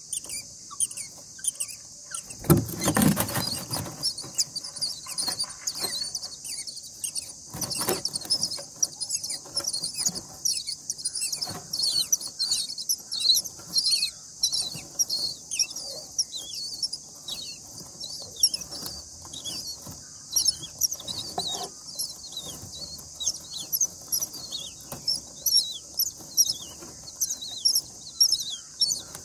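Common myna nestlings begging: a rapid, continual stream of thin, high squeaks over a steady high hiss, with a louder rustle about three seconds in.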